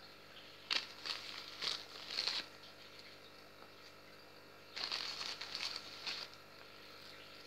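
Two spells of light rustling and crackling, about a second in and again near five seconds, as powdered calcium is shaken out of its container and sprinkled over the enclosure's substrate.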